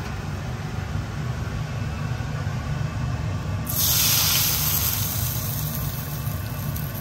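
Hot oil with fenugreek seeds poured from a small frying pan onto a bowl of chhoila marinade, sizzling sharply about halfway through and then fading, over a steady low hum.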